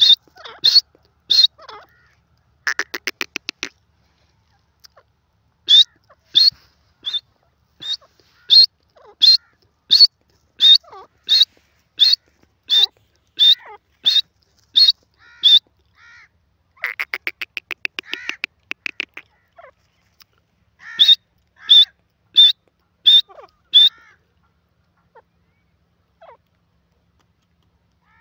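Francolin (teetar) calling: runs of loud, sharp, high single notes about one to two a second, twice broken by a rapid buzzing rattle lasting one to two seconds.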